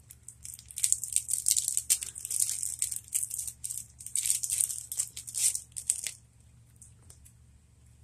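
Cellophane shrink wrap crinkling and tearing as it is cut and peeled off a deck of game cards. It runs as an uneven stream of crackles for about five seconds and stops about six seconds in.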